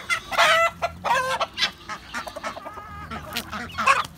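A flock of chickens clucking and squawking as they crowd in for feed, with several loud calls in the first second and a half and another near the end, over many short clicks.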